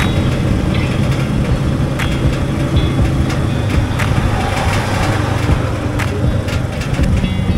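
Motorcycle engine running steadily, with scattered clicks and short high squeaks of rattling parts.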